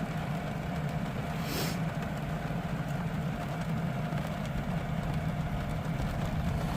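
Van air conditioner running with a steady hum, under a faint even hiss of rain. A brief hiss about a second and a half in.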